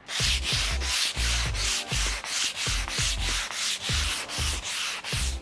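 P180 sandpaper on a hand sanding block rubbed along the grain of a plywood panel, in quick, even back-and-forth strokes, about four a second.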